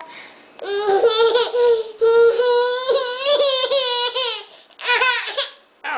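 Baby crying: one long drawn-out wail lasting about four seconds, then a shorter wail near the end.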